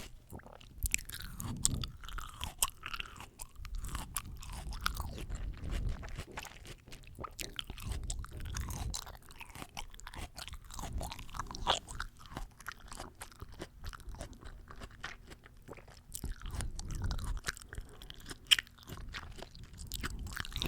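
Close-miked chewing of fresh fruit, in irregular bouts every second or two, with many wet mouth clicks.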